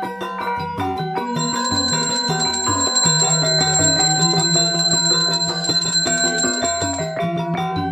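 Balinese gamelan playing: metallophones striking quick repeated notes over low gong tones. A small hand bell rings continuously over the music from just over a second in until near the end.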